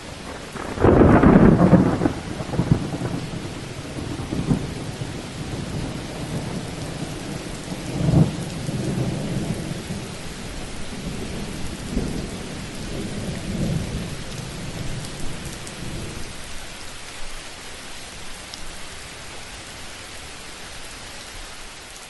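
Thunderstorm: a loud thunderclap about a second in, followed by rolling rumbles of thunder that swell again several times and die away, over steady rain.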